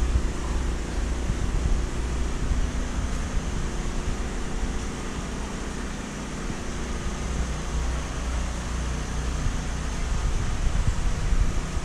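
Portable gasoline generator running at a steady hum under load, powering the aquarium pumps during a power outage.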